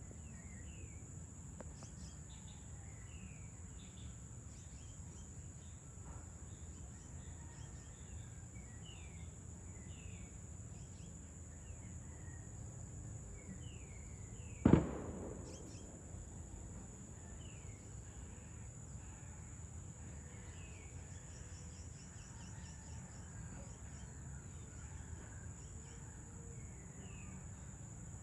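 Outdoor ambience of a steady high-pitched insect drone and birds chirping over and over in short falling calls, over a low background rumble. About halfway through, a single loud firecracker bang cuts in and dies away within about a second.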